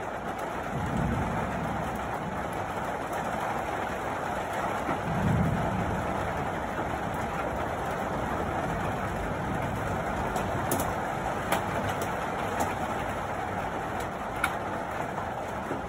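Steady downpour of rain and hail, with scattered sharp ticks of hailstones striking in the second half and two brief low rumbles in the first six seconds.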